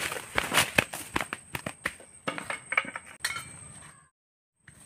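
Irregular crackling snaps and rustles of dry leaves, twigs and brush being trodden and pushed through underfoot in jungle undergrowth. The sound drops out completely for about half a second near the end.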